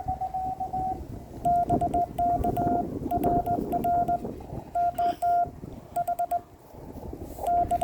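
Morse code (CW) from an amateur radio transceiver: a steady tone of about 700 Hz keyed on and off in dots and dashes, over a hiss of band noise. Sharp clicks mark the edges of the elements.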